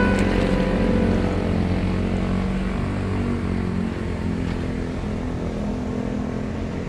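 Motorcycle engine running while riding through deep floodwater, with water swishing around it; the sound slowly gets quieter over the first few seconds.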